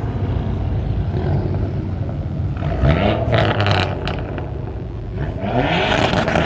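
Car engines running with a steady low rumble; a car accelerates, its engine note rising, about three seconds in and again near the end.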